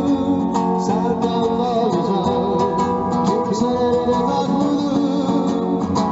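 Background music with a plucked guitar and a singing voice.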